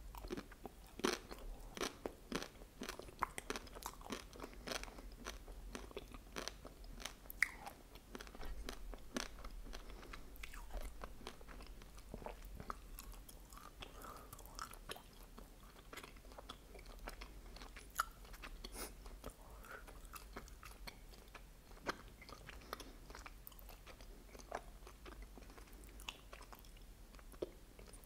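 Close-miked biting and chewing of a chocolate-coated vanilla ice cream bar: the hard chocolate shell cracks and crunches, mixed with wet chewing and small mouth clicks. The crunching is busiest in the first ten seconds, then comes in sparser crackles.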